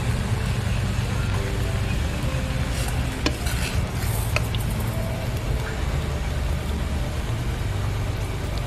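Hakka noodles frying with a steady sizzle in a wok as a steel spoon stirs and tosses them. A few sharp clicks of the spoon against the pan come around three to four seconds in.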